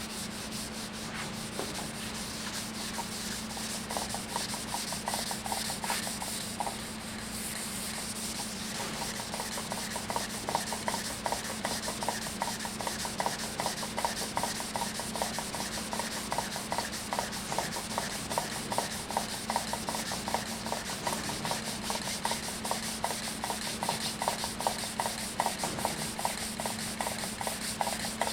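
Fine-grit sandpaper wet sanding the cured finish of a stave drum shell, a continuous scratchy rubbing. About four seconds in it becomes quick, even back-and-forth strokes.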